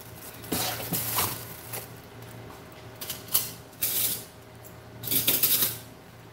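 Items being handled on a kitchen counter: about five short rustles and clatters, the loudest near the end, over faint room hum.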